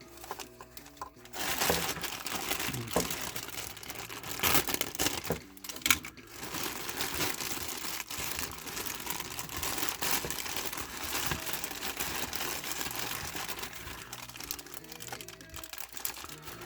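Plastic packaging bag crinkling and rustling with sharp crackles as statue pieces are handled and pulled from their sealed bag sections, starting about a second and a half in and easing off near the end.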